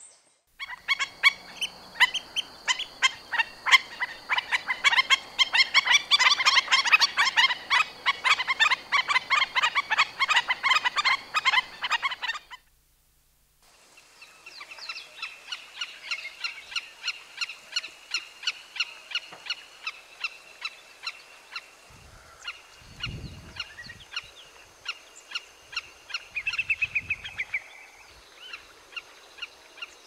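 Shorebirds calling: a dense, loud chorus of sharp yapping notes, several a second, that cuts off about halfway. After a second's break a fainter recording follows, with calls about once or twice a second over a steady high whine, a quick run of notes near the end, and two low rumbles.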